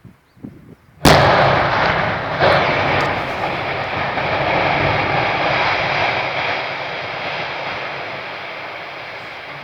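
Explosive demolition charges bringing down a power station: a loud blast about a second in, two more sharp bangs soon after, then a long rumble that slowly fades.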